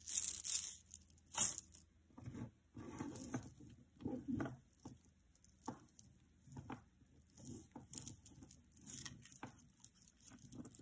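Costume jewellery being handled: metal chains, wire and beads clink and scrape in irregular bursts as a tangle of necklaces is pulled apart by hand. The loudest clatter is in the first second and a half.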